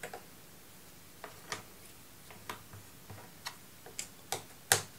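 Cardboard jigsaw puzzle pieces clicking and tapping on a table as they are handled and pressed into place: about ten small irregular clicks, the loudest a little before the end.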